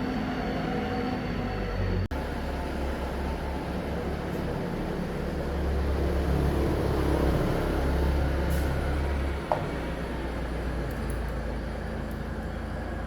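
A steady low mechanical rumble, with a brief cut-out about two seconds in and a short click later on.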